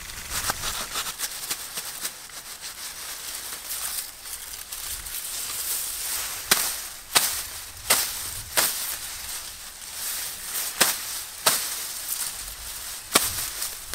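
A knife chopping on a board: seven sharp chops about 0.7 s apart, starting about halfway through, over a steady high hiss.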